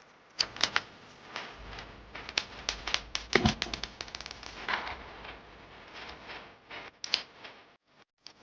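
Irregular sharp clicks, taps and rattles of handling an Umarex Glock 17 blowback BB air pistol and its parts, thickest in a quick run about three seconds in, with a last sharp click near the end.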